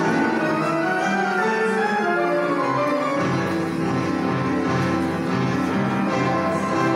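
An upright piano playing a piece. A steady, repeating bass line comes in about three seconds in.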